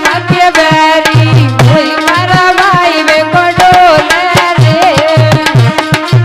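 Folk music instrumental passage: a fast hand-drum rhythm with deep bass strokes under a bending melody line.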